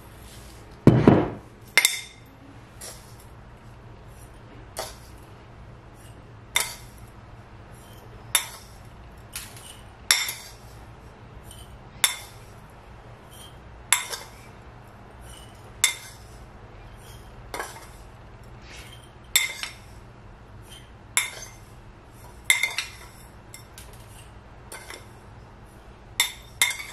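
Metal teaspoon clinking against a ceramic bowl as salt is scooped out and dropped into glass canning jars, about one sharp ringing clink every two seconds, with a duller knock about a second in.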